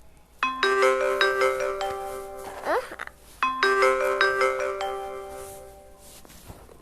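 Samsung Galaxy S6 ringtone playing a bright, marimba-like chiming melody, the phrase heard twice with a short rising glide between the two, the second fading away.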